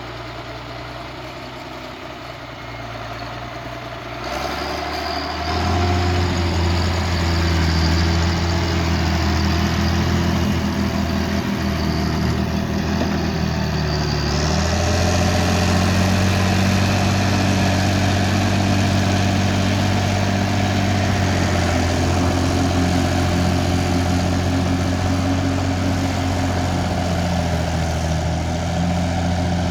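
Case 1694 tractor's diesel engine running steadily under load while ploughing, growing louder about four to six seconds in and then holding a steady drone, with a brief dip in pitch partway through.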